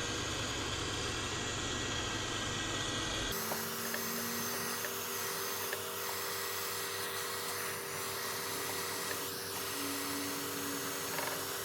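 A heat gun blowing hot air steadily onto the back of a phone to soften its adhesive. About three seconds in its sound changes abruptly, losing its low rumble and taking on a steadier, thinner whine.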